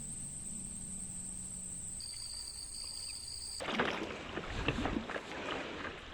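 Insects calling in a steady high-pitched chorus that shifts pitch about two seconds in. About three and a half seconds in this cuts to louder, uneven wind noise and splashing water on an open lake.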